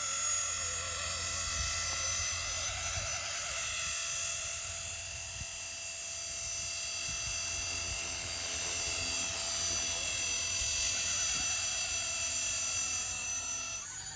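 Blade 250 CFX electric radio-controlled helicopter in flight: a steady high-pitched whine from its motor and rotor head, drifting slightly up and down in pitch as it manoeuvres.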